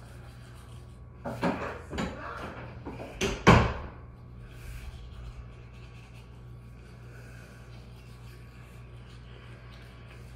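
Handling noise from a phone being moved against the sink counter: two short bursts of rubbing and knocking on its microphone, a little over a second in and again about three seconds in, the second one louder, over a low steady hum.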